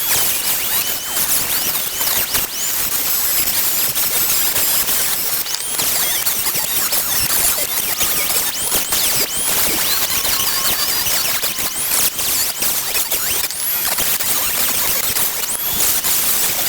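Power grinder grinding into the crimped metal retaining ring of a 1935 Ford door handle, cutting it out to free the escutcheon. It makes a loud, continuous grinding noise with a high whine that bends in pitch again and again as the wheel bites into the metal.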